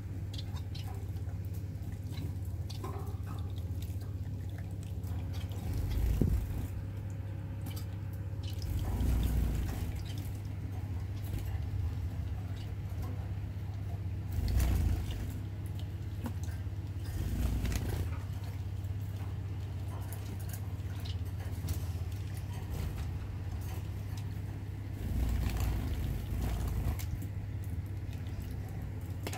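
Small electric pet drinking fountain running: its pump hums steadily while water trickles down from the spout into the bowl. A few dull bumps come about 6, 9, 15, 17 and 25 seconds in.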